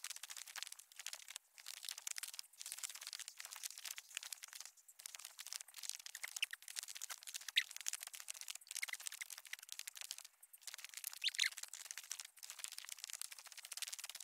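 Footsteps crunching in snow, an irregular run of steps with short pauses between them.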